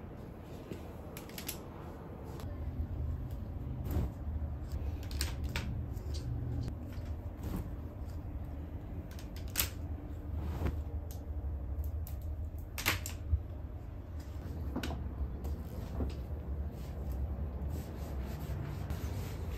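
Plastic clothes hangers clicking and clattering and laundry rustling as dry washing is taken in and handled. The clicks come scattered and irregular, the sharpest a few clustered near the middle, over a steady low rumble.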